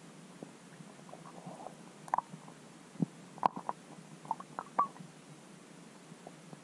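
Underwater sound through a camera's waterproof housing: a low steady hiss with scattered short clicks and pops, most of them bunched in the middle, the sharpest about three and a half seconds in.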